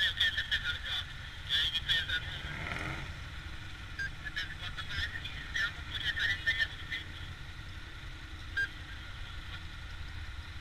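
Motorcycle riding slowly in traffic: a steady low engine and road rumble. Scattered bursts of thin, choppy, voice-like chatter come thickly through the first seven seconds and thin out after, with a brief falling glide about two seconds in.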